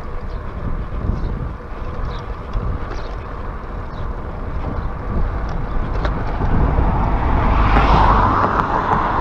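Wind rushing over the microphone of a handlebar-mounted camera on a moving bicycle, a steady low rumble. A car overtakes close by near the end, its tyre and engine noise swelling to a peak about eight seconds in.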